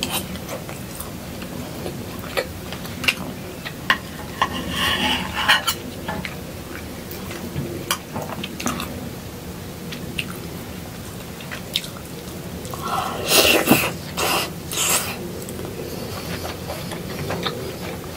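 Metal knife and fork clicking and scraping on a plate while cutting food, mixed with close-up chewing and eating sounds. A few louder bursts come about five seconds in and again around thirteen to fifteen seconds in.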